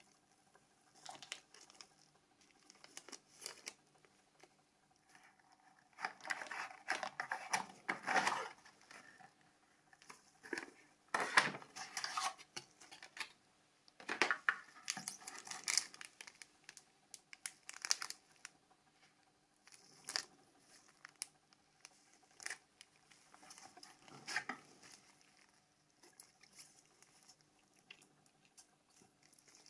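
Plastic wrapping and a cardboard phone box being handled by gloved hands: crinkling and rustling in irregular bursts, with small sharp clicks and taps.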